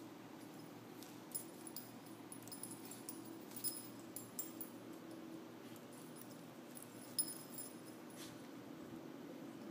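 A puppy pawing and mouthing at a cockroach on a tile floor: scattered light clicks and taps, a few sharper ones about a second and a half in, near four seconds and past seven seconds.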